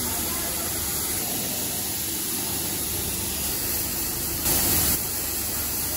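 Handheld air spray gun hissing steadily as it sprays a white coating, with one short, louder burst of spray about four and a half seconds in.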